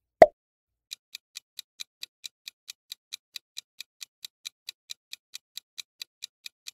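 Quiz countdown timer sound effect: a clock ticking about four to five times a second, preceded by a single sharp click as the question appears.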